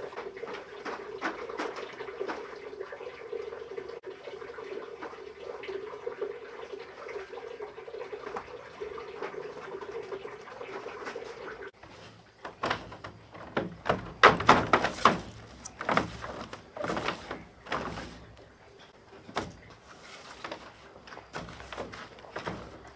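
Running water trickling and splashing into a basin. Then a straw broom sweeping a wooden plank floor in irregular scraping strokes, the loudest sound.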